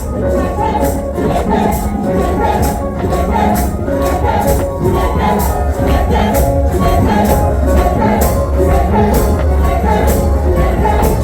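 Background music with a steady beat: sustained melodic parts over a low pulse, with sharp high percussion ticks about twice a second.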